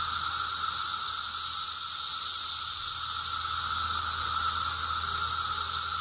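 Massed chorus of 17-year periodical cicadas singing in the trees: a steady, unbroken drone with a high hissing buzz over a lower, narrower whine.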